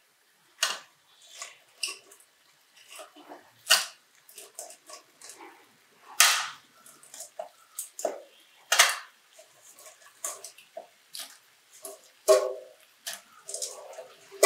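Raw crab pieces dropped into an aluminium kadai of thick masala: an irregular run of clattering knocks of shell against the metal pan, with two louder knocks near the end.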